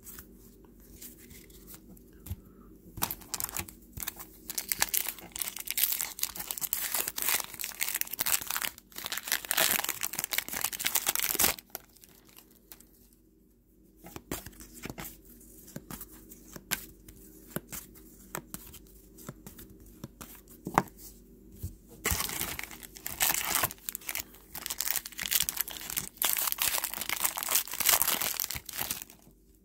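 Foil trading-card pack wrappers crinkling and tearing open, in several spells a few seconds long with quieter pauses between, as the cards inside are handled.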